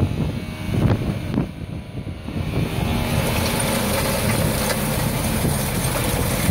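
Indecar Guerrera 1352 seed drill being towed through a field, its disc openers and press wheels rattling over the ground, with a tractor engine running. Irregular knocks and clatter for the first couple of seconds settle into a steady running noise with a low hum.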